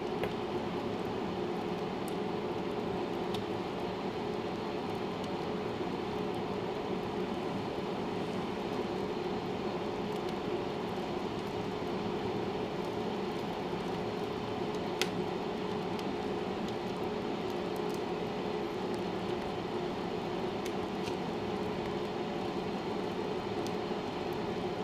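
A steady mechanical hum with a rushing sound and a constant pitch, unchanged throughout, with one faint click about fifteen seconds in.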